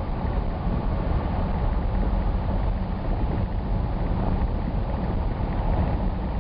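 Steady low rumble of a vehicle driving at speed: road and wind noise.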